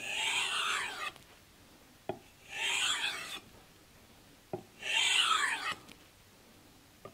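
Santoku knife blade drawn across a leather strop loaded with 1-micron diamond emulsion: three even scraping strokes about two and a half seconds apart, each just after a light tap as the blade is set on the leather, with another tap near the end.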